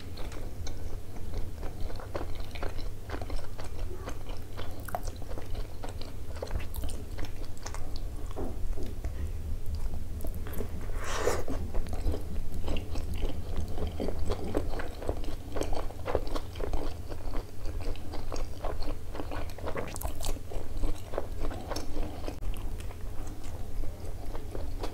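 A person biting and chewing a soft-bun hot dog with coney sauce and mozzarella: wet mouth sounds and small clicks throughout, with a couple of sharper, louder clicks about 11 and 20 seconds in.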